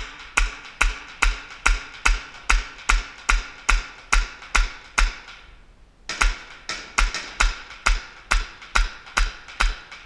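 Tokyo Marui USP Compact gas blowback airsoft pistol fired in rapid succession, about two and a half shots a second. Each shot is a sharp crack with a short echo. The firing pauses for about a second midway, then a second string follows.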